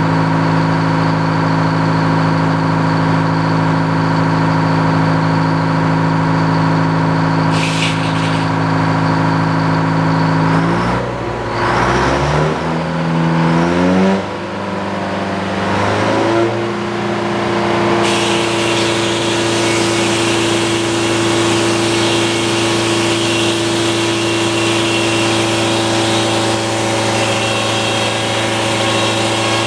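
Engine powering a circular sawmill, running steadily. Around the middle its pitch steps up and down several times before it settles at a new steady speed, and a hiss joins in about two-thirds of the way through.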